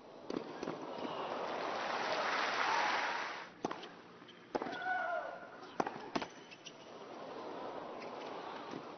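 A crowd applauding and cheering swells for about three seconds, then cuts off abruptly. Tennis balls are then struck on racquets in a rally, several sharp pops a second or so apart, with a player's short cry on one shot. Crowd noise rises again near the end.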